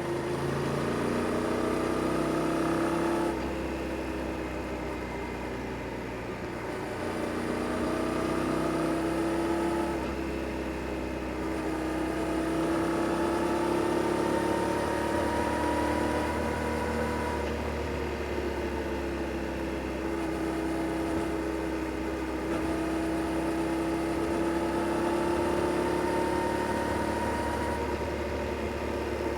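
Yamaha Tracer 7 GT's 689 cc parallel-twin engine on its stock exhaust, ridden through bends: the revs climb and fall several times as the rider accelerates and rolls off, with sudden drops in pitch about 3 and 10 seconds in.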